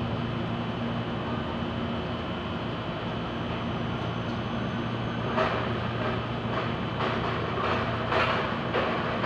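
Bolo knife hacking at a tree branch: a run of chopping strokes, a little under two a second, starting about halfway through, over a steady low hum.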